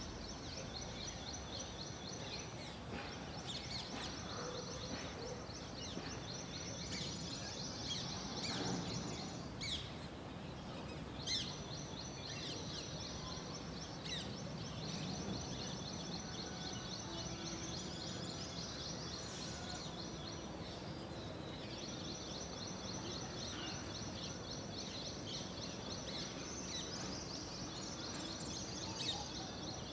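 Birds chirping and calling at dawn over a dense, continuous high-pitched chorus and a low outdoor background hum. The chorus drops out for a moment about two-thirds of the way through, and a few sharper single chirps stand out around the middle.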